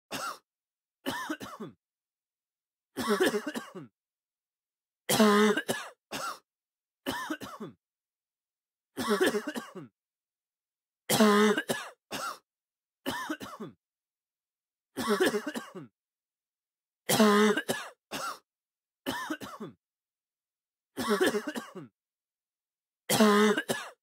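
A person coughing and clearing the throat in short bursts about every two seconds, some coming as quick double coughs, with dead silence between them.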